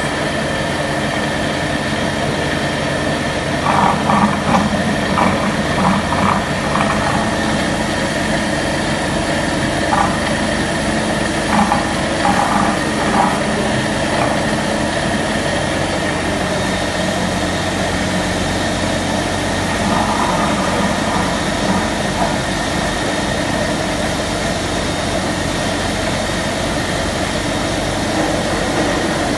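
Steady mechanical drone of a running Koppens/CFS coating, breading and frying line: conveyor mesh belts, batter and breading machines and belt fryer, with a constant high tone over the hum. Short clusters of higher sounds come and go a few times.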